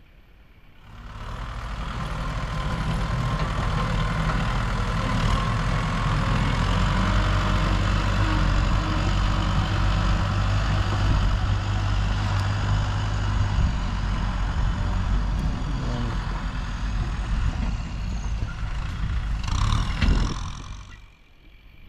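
Heavy earth-moving machine's diesel engine running steadily, coming in about a second in. Near the end there is a short, loud burst, after which the engine sound drops away.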